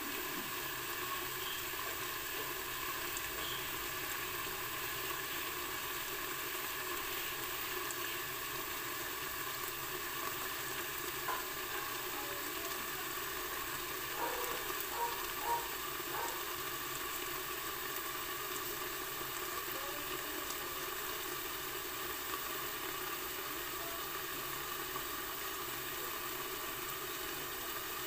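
Vegetable filling with a little ground pork sizzling steadily in a lidded wok over the fire, with a few faint short tones about halfway through.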